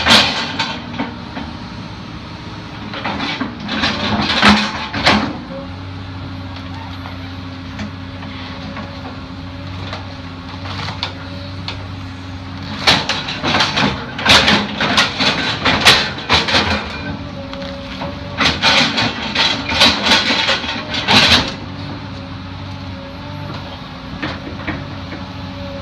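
Mini excavator's engine running steadily while its bucket rips a tree stump and roots out of the ground. Bursts of cracking and crunching from splintering roots and soil come about three to five seconds in, then again through most of the stretch from about thirteen to twenty-one seconds.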